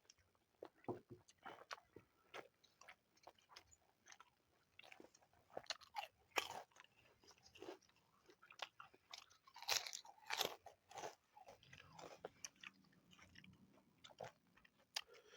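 Close-up crunching and chewing of food: irregular crisp bites and mouth sounds, with a few louder crunches around the middle.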